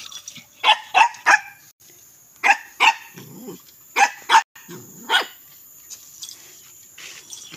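Shih Tzu barking at a rabbit in short bursts of two or three high yaps, about eight barks in all, stopping about five and a half seconds in.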